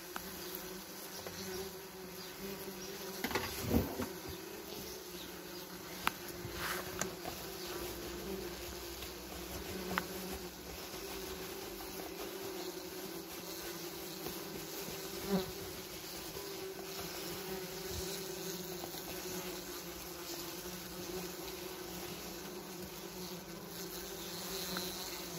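Wasps buzzing steadily around their paper nest, giving an even colony hum. A few brief knocks sound through it.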